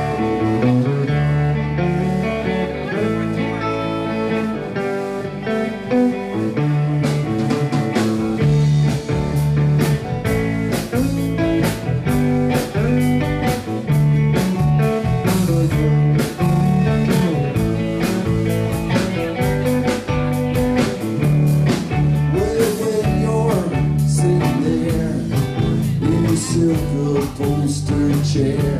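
Live rock band playing the instrumental intro of a song: electric guitars over a steady drum beat, with no vocals yet.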